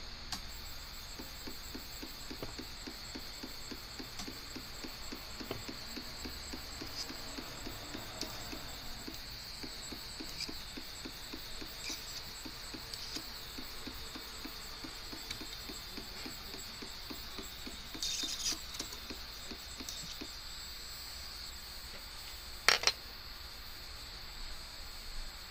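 Portabee 3D printer's extruder stepper motor ticking rapidly and evenly as it slowly feeds filament through the hot end, over a steady high hiss. The ticking stops a few seconds before the end, and a single sharp click follows.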